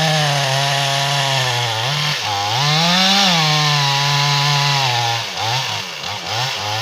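Chainsaw running at high revs while felling a tree. Its engine pitch drops and climbs again about two to three seconds in, then rises and falls several times near the end.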